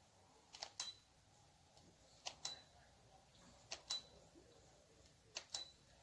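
Ceiling fan running with a faint, regular ticking: a sharp double click about every second and a half.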